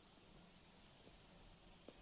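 Near silence: a faint steady hiss with two faint ticks, one about a second in and one near the end.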